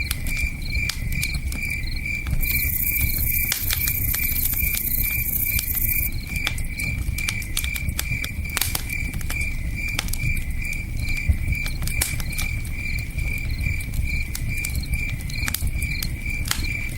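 Campfire crackling with sharp, irregular pops over a low rush of river water, while a cricket chirps steadily at about three chirps a second.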